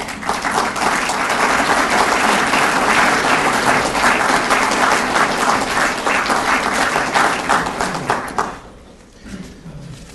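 Audience applauding, dense, many hands clapping at once, dying away about eight and a half seconds in.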